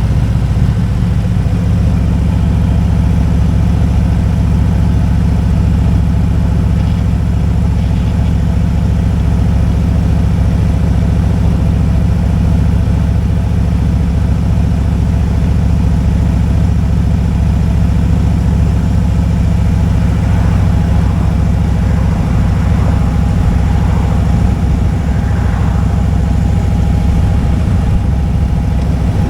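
Motorcycle engine running at steady revs through the ride, with a dense low rumble and no change in speed.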